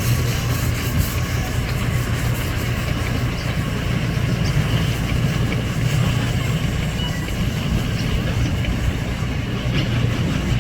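Miniature ride-on train running along its track: a steady, unbroken rumble.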